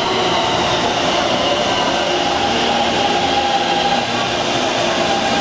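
Taipei Metro Blue Line train moving alongside the platform: a steady rush of wheel and car noise with an electric whine of several tones from its motors.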